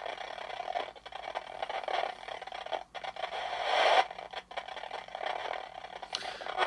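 Polterpod spirit box sweeping through radio stations: a choppy static hiss broken by brief drop-outs.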